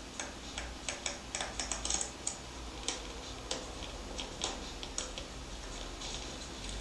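A run of light, irregular clicks and ticks, about three a second.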